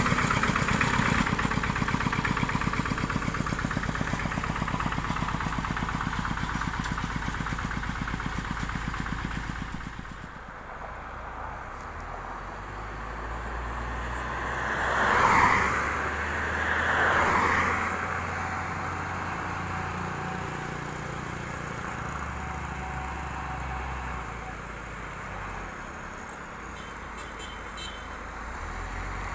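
A QUICK two-wheel hand tractor's single-cylinder diesel engine runs with a fast, even chug, fading out about ten seconds in. Then a motorcycle and a second vehicle pass close by, one after the other, about 15 and 17 seconds in, followed by the low, steady running of an Isuzu box truck's diesel engine as it comes up the road.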